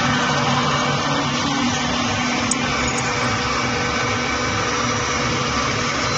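Thread rolling machine running: a steady mechanical whir with a low hum underneath.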